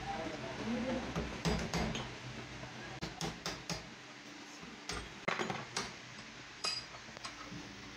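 Irregular light metallic clinks and knocks as tools and small engine parts, such as the cylinder head and a valve-seat ring, are handled on a metal workbench.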